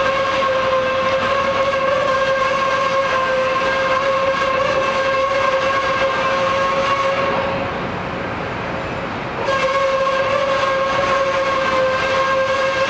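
Rail cars being shoved onto the barge's deck tracks, with a steady high-pitched tone that holds for about seven seconds, drops away for about two, then comes back.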